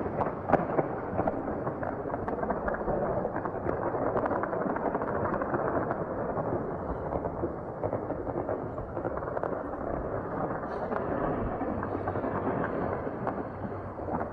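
Distant gunfire fired into the air, many weapons at once: dense, overlapping shots and bursts of automatic fire that merge into a continuous crackle, with louder single cracks standing out now and then.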